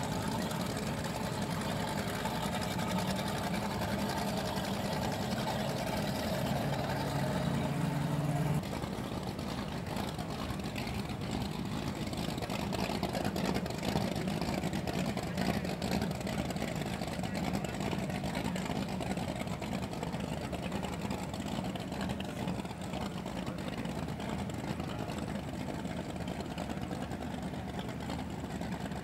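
Outboard motors of small race powerboats running steadily at low speed. The engine sound changes abruptly about eight seconds in, when a different boat is heard.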